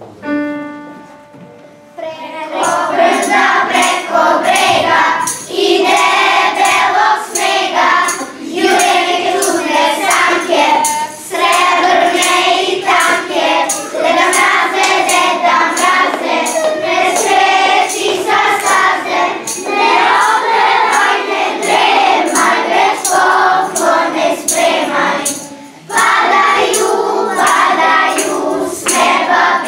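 A choir sings a song over music with a steady beat. It opens with a single held note, and the full song comes in about two seconds in.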